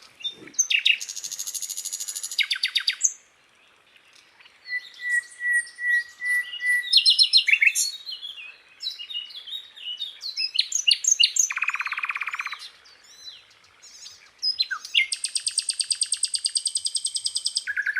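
Sikatan londo flycatcher singing a varied song: fast high trills, a row of even whistled notes, and quick chirps. A lower rattling trill comes about two thirds of the way in, and a long fast trill runs near the end, with short pauses between phrases.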